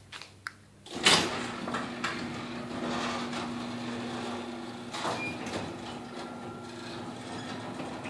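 Electric garage door opener starting with a click about a second in and raising a sectional garage door: a steady motor hum with the rollers running along the tracks. The door's springs, drums and rail have just been lubricated.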